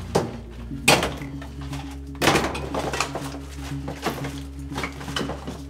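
Background music with steady low tones, over a series of sharp knocks and clatters, the loudest about a second in and just after two seconds.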